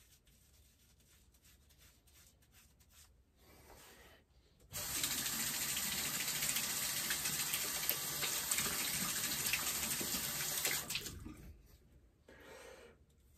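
Bathroom sink tap running water into the basin: it comes on suddenly about five seconds in, runs steadily for about six seconds, then is shut off.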